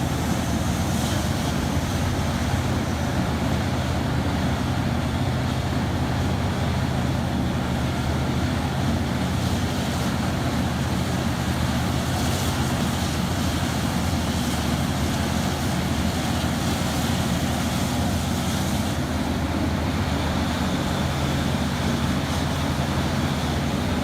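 Large diesel engine of a Terex RH170 mining excavator running steadily under load: a constant low drone with a noisy mechanical wash on top.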